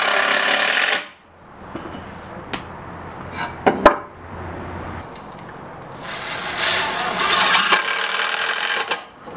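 Cordless drill driving screws into 2x4 lumber: a run of about a second at the start and another of about three seconds near the end. In between, a few sharp wooden knocks as the pieces are handled, the loudest just before the middle.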